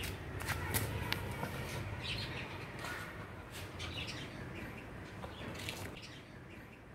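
Birds chirping, with short sharp clicks as a beagle noses among small fallen green mangoes on paving tiles.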